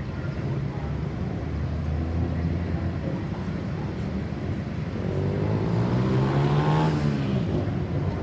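Street traffic rumbling, with a road vehicle passing close about five to seven seconds in: its engine note slides in pitch and its tyre rush swells to the loudest point, then fades.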